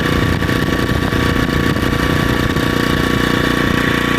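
Loncin 2000i inverter generator's small four-stroke engine running steadily at low speed in economy mode, heard close up at its muffler. A rough, gusty low rumble from the exhaust lies over its steady hum and eases off near the end.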